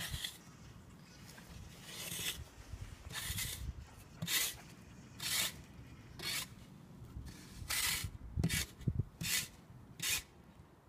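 Footsteps crunching in fresh snow, one short crunch about every second.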